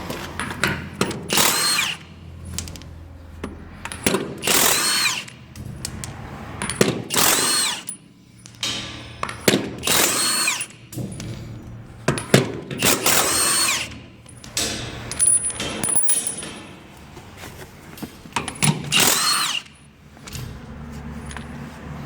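Milwaukee M18 FUEL CHIW-P12 half-inch high-torque brushless impact wrench hammering trailer wheel nuts loose. It runs in about seven bursts of roughly a second each, and the motor whine rises and falls with each trigger pull.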